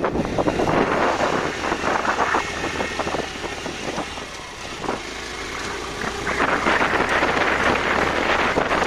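Motorcycle engine running as the bike rides a rough dirt road, with wind buffeting the microphone; the noise gets louder about six seconds in.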